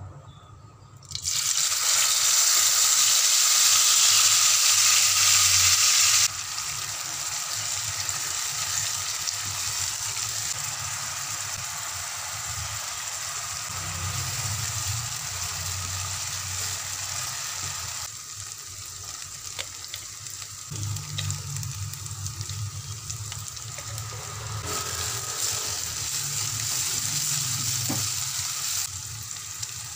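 Ground spice paste hitting hot oil in a frying pan and sizzling loudly, starting about a second in. After about five seconds the sizzle settles lower and keeps going while the paste is stirred and sautéed with a spatula, with a few faint spatula clicks.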